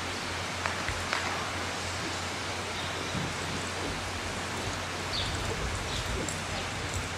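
Steady hiss of background noise, with a few faint clicks about a second in and again later.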